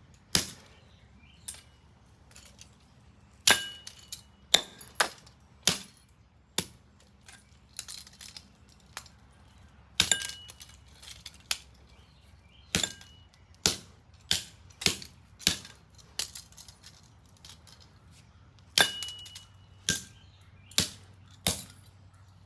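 Axe blows chopping a plastic Pass & Seymour electrical receptacle against concrete: about two dozen sharp strikes at uneven spacing, a few of them leaving a short, high metallic ring.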